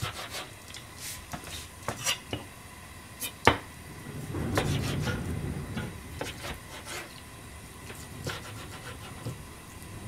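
Kitchen knife slicing through Pacific cod roe and knocking on a plastic cutting board: a run of sharp taps, the loudest about three and a half seconds in. A low rumble follows for about two seconds.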